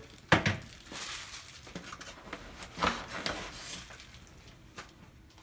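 Handling noises as parts and plastic packaging are moved about: a sharp knock about a third of a second in, then scattered soft rustles and light clicks.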